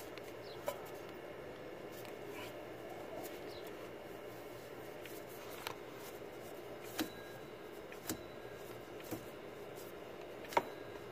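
Light clicks and taps, about six scattered through, the loudest near the end, as a hand handles the belt pulleys of a Toyota Fortuner's engine with the drive belt off, over a faint steady hum.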